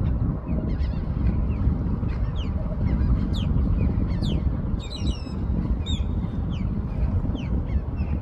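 Osprey calling: a series of short, high, whistled chirps, most sliding down in pitch, with a quick cluster of notes about five seconds in. A steady low rumble runs underneath.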